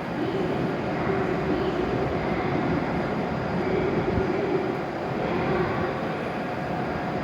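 W7-series Shinkansen train moving at the platform: a steady rumble of running noise with a low hum that swells and fades.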